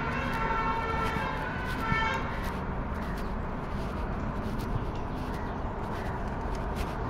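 A long, steady horn-like tone with several overtones, held until about two and a half seconds in, over a constant outdoor background hum.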